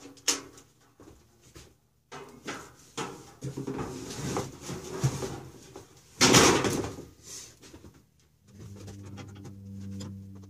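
Knocks, clicks and cardboard rustling as a water heater and its packaging box are handled, with one loud burst of rustling a little past halfway. About two-thirds of the way through, a steady low humming tone comes in and holds.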